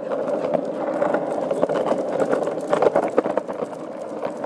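Skateboard wheels rolling fast over asphalt, a steady rumble broken by many irregular clicks and knocks.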